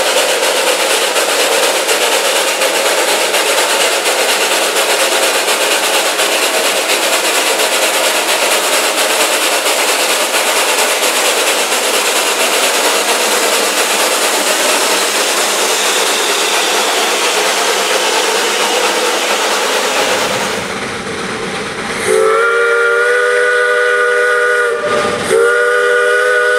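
A steady, loud hiss of escaping steam from a steam locomotive, then the locomotive's multi-note chime whistle blowing two blasts, a longer one and then a short one after a brief break.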